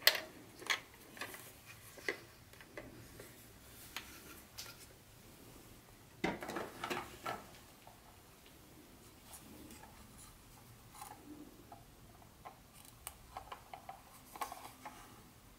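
Plastic model train cars being handled: scattered light clicks and knocks as the cars are set down in and lifted out of a clear plastic packing tray, with a longer run of plastic clatter about six seconds in.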